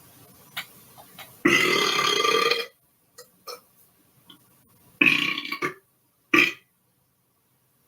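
A person belching three times: a long burp lasting over a second, then about two and a half seconds later a shorter one, followed at once by a brief third.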